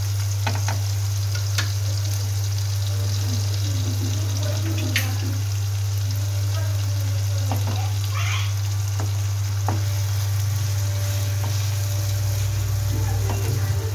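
Onions, tomatoes and chillies sizzling in hot oil in a nonstick kadai, with scattered clicks and scrapes of a spatula stirring against the pan. A loud, steady low hum runs underneath.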